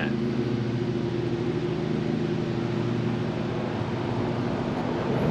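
A machine running steadily: an even, low hum with a few steady tones.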